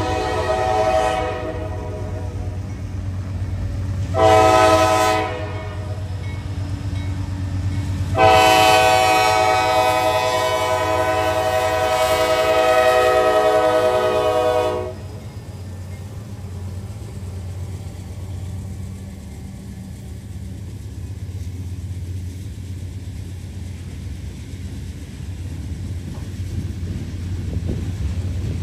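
Diesel locomotive's multi-chime air horn: the end of one blast about a second in, a short blast near four seconds, then a long blast of about six and a half seconds, the close of a grade-crossing signal. After that the low rumble of the passing train goes on under heavy rain.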